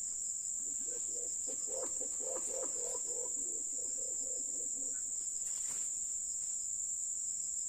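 Steady high-pitched drone of a forest insect chorus, with a fainter low, pulsing sound in the first five seconds.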